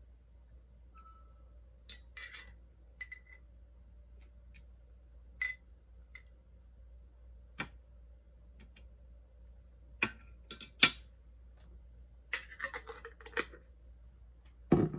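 Scattered light clicks and clinks of a fork against a glass jar of sliced yellow peppers as pieces are picked out, with a sharper clink about eleven seconds in and louder knocks near the end as the jar is handled.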